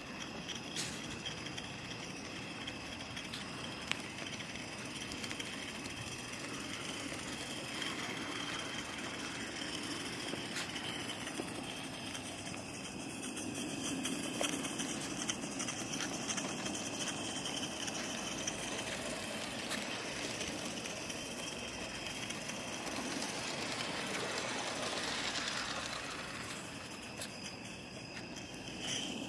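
Live-steam garden-scale Forney tank locomotive running along its track: a steady hiss of steam with the running noise of the engine and wheels on the rails.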